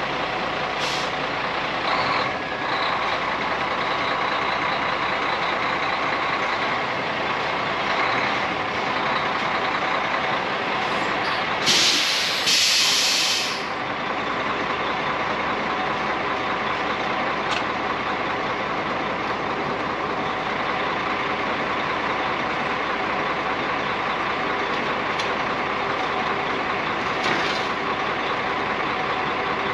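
Grain truck's engine running steadily, with a loud air-brake hiss lasting a second or two about twelve seconds in.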